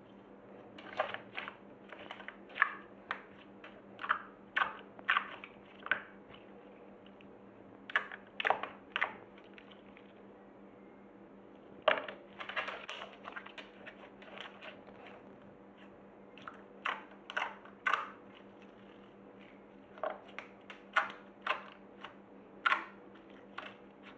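Glossy slime being pressed and worked by hand, making irregular short clicks and pops, some in quick clusters, over a faint steady hum.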